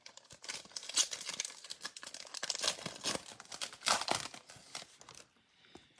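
A trading-card pack wrapper being torn open and crinkled by hand, a dense run of crackling and tearing that stops about a second before the end.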